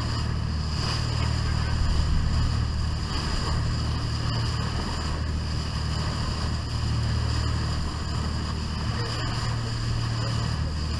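Boat engine running steadily as the boat moves ahead, with the rush and splash of the bow wave along the hull.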